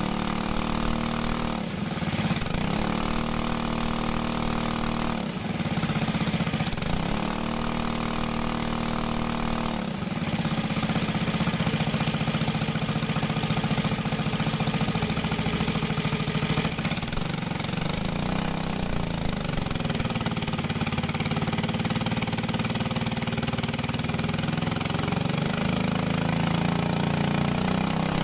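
Small go-kart engine running on a hydraulic dyno as the flow control valve is worked by hand. Its speed dips and recovers three times in the first ten seconds, then holds steadier with one gentle sag and recovery later on.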